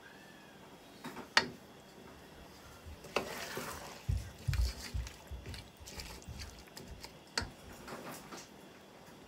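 Wooden spoon stirring and scraping cut potatoes, carrots and peas being fried in masala in a metal pot, knocking sharply against the pot a few times, loudest about a second and a half in, with dull low thumps in the middle.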